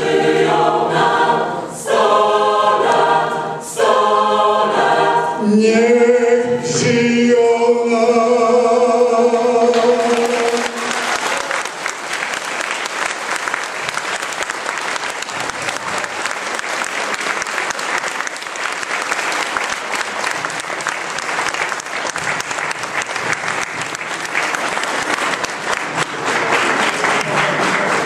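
A mixed youth choir sings the closing phrases of a song and ends on one long held chord. About ten seconds in, the audience breaks into applause, which continues to the end.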